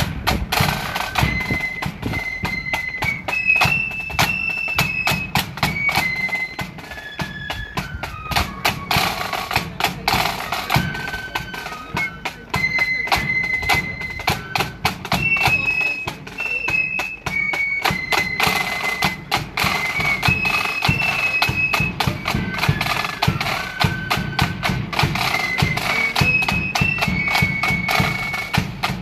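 Marching band playing a tune on the move: side drums beat a fast, busy rhythm under a high melody carried by wind instruments.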